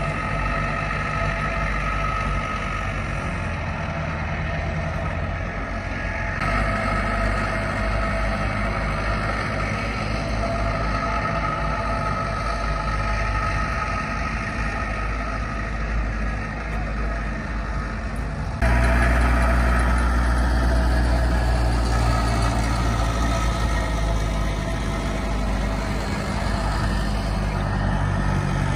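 Small aircraft tug's engine running steadily as it moves a Hawker Hurricane on a tow bar, with a steady whine over a low rumble. The sound shifts abruptly twice and is louder for the last third.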